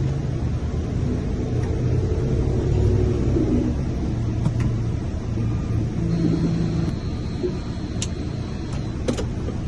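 Key-cutting machine's motor running steadily through a cutting pass, with a few light clicks near the end. The pass is so shallow that it barely removes metal from the key.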